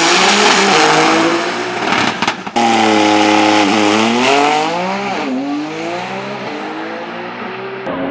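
Race car engines revving at a drag strip, the pitch rising and falling. A loud rushing noise sits over the engines for the first two seconds, and the sound breaks off abruptly about two and a half seconds in, then picks up again.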